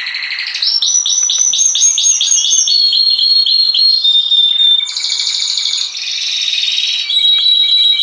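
Domestic canary singing a long, varied song in rows of repeated notes: a run of about five notes a second, then faster trills and a buzzy roll, ending on steady whistled notes.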